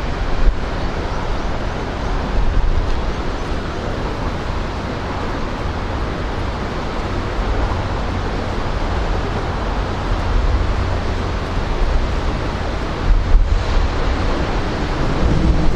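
Wind buffeting the microphone in gusts over the rush of rough sea water below. A steady low hum joins in near the end.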